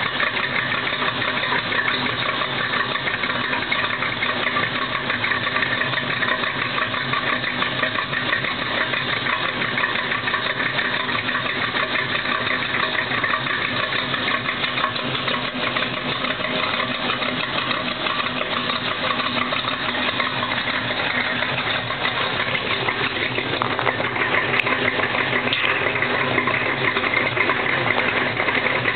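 1965 GMC pickup's crate 350 small-block V8 with a street cam, running steadily through a dual Dynomax exhaust; the sound grows slightly louder near the end.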